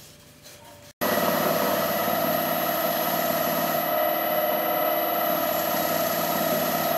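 Wood lathe running steadily, with a hum and whine of several steady tones, as a cloth is held against the spinning wooden lamp base to wipe on sanding sealer. The sound is much quieter for the first second, then cuts in loud after a brief dropout.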